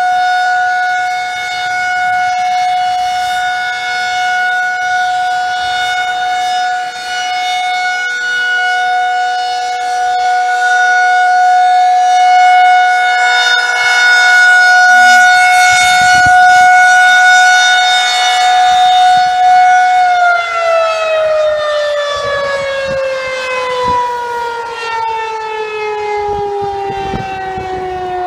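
Outdoor tornado warning siren sounding a steady tone for its monthly test. About twenty seconds in it shuts off and winds down, its pitch falling slowly.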